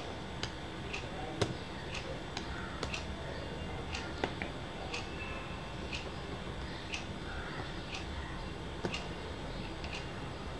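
Steady, even ticking about twice a second, with a few sharper, irregular clicks from small parts of an opened smartphone being handled and pried.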